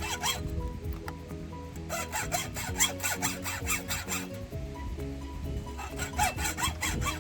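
Background music over three bursts of quick back-and-forth scraping strokes from a hand tool, about four or five strokes a second.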